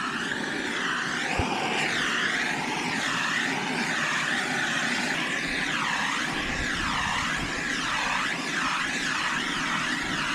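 Heat gun blowing hot air over PVC electrical conduit to soften it for bending: a steady blowing hiss whose tone wavers up and down.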